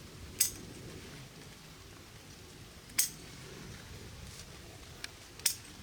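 Three sharp, high clicks or clinks, about two and a half seconds apart, over a low steady background.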